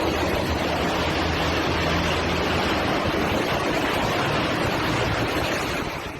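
Strong tornado wind rushing and buffeting the microphone, a loud steady rush that falls away just before the end.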